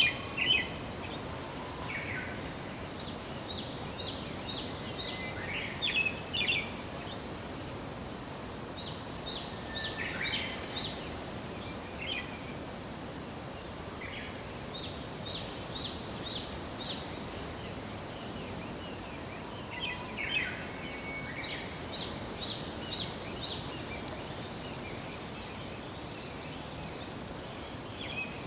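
Pale thrush singing its "kyoron kyoron" spring phrase: a quick run of about five short, clear high notes, repeated four times roughly every six seconds. Scattered single call notes fall between the phrases, over a steady background hiss.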